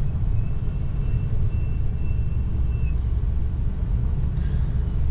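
Steady low rumble of an RV's engine and road noise heard inside the cab. In the first three seconds a faint, thin, high whine sounds over it.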